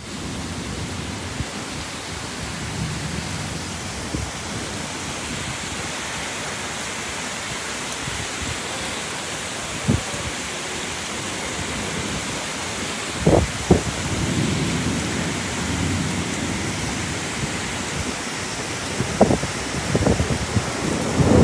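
Heavy storm rain pouring down, a steady rushing hiss, with a few short sharp knocks around the middle and near the end and a low rumbling in the second half.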